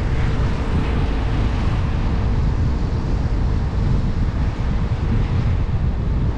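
Jeep driving on a wet road: a steady low rumble of tyres and wind on the microphone, with a faint steady hum under it.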